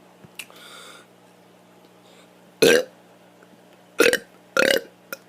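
A child burping on purpose, three short loud burps: one about two and a half seconds in, then two more in quick succession near the end.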